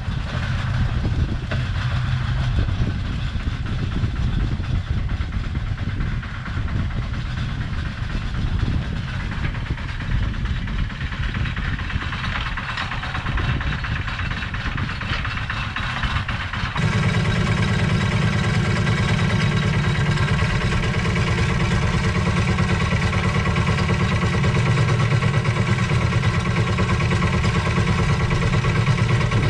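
Lister SR1 single-cylinder diesel engine of a 1979 Smalley 5 mini excavator running steadily while the digger works its arm in a trench. About two-thirds of the way through, the sound jumps closer and louder.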